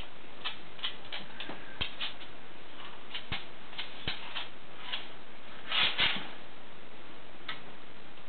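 A Rhodesian Ridgeback's claws clicking irregularly on a laminate floor as she paws and noses her padded dog bed and blanket into place, with a louder scuffle about six seconds in.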